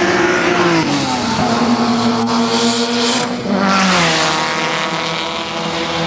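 Race car engines running hard past trackside on a wet circuit. One engine note drops in pitch about a second in, and another swells and glides around four seconds, over a steady hiss of tyre spray.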